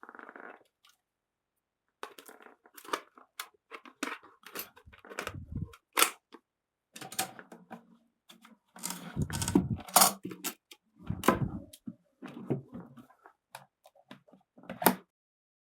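Irregular mechanical clicks, clacks and a few heavier clunks from a 1940 Groma Modell N portable typewriter being handled and worked.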